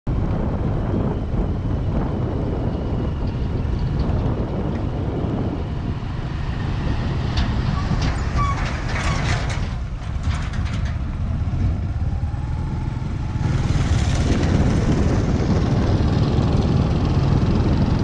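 Steady low rumble of a vehicle travelling over a rough, unpaved dirt road, road and wind noise, with a spell of rattling and clicking in the middle; it gets somewhat louder a little after two-thirds of the way through.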